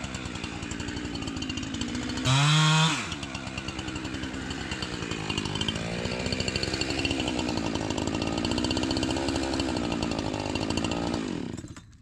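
Gas chainsaw cutting through a large fallen Douglas fir trunk. It revs hard once for under a second near the start, then runs steadily at a lower, rougher pitch in the cut, and stops about half a second before the end.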